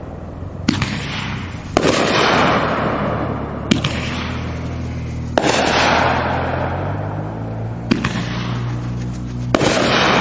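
Aerial firework shells bursting in the air: six sharp bangs one to two and a half seconds apart, each trailed by a long fading noise.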